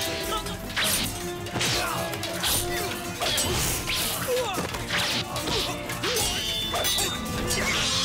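Staged fight sound effects: whacks and crashes of blows landing about once a second, with swishes of movement, over dramatic background music.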